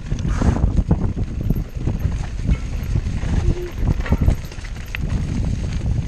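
Downhill mountain bike rattling and knocking over rough ground at speed, a fast irregular clatter of impacts over a constant low rumble of wind and tyre noise.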